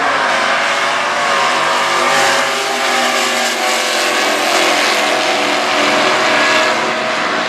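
Stock Eliminator drag cars launching off the starting line and accelerating hard at full throttle down the strip, with loud, continuous engine sound throughout.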